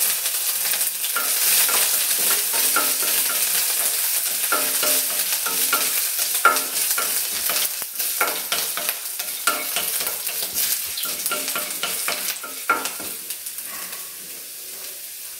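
Pepper, cumin and ginger frying in hot ghee in a kadai, sizzling, while a wooden spatula stirs and scrapes against the pan in irregular strokes. The sizzle dies down toward the end.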